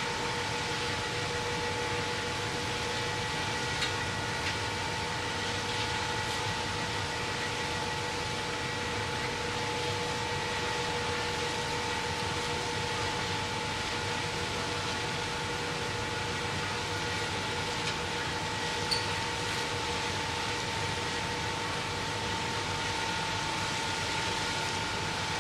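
Steady drone of a vessel's engine with the rush of water and air, carrying a constant whine in several pitches.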